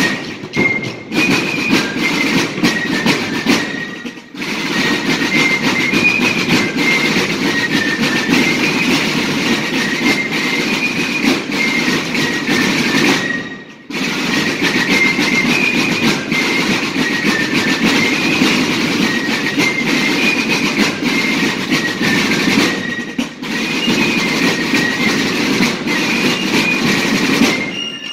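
Fife-and-drum music: a corps of rope-tension field snare drums and bass drums playing rapid rudimental rhythms under a high fife melody. The music breaks off briefly three times, about 4, 14 and 23 seconds in, then starts again.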